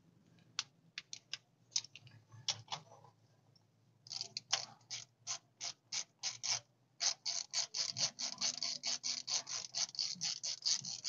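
Hand socket ratchet clicking as it backs out a starter mounting bolt. A few scattered clicks, then after a short pause a quick, steady run of about four clicks a second.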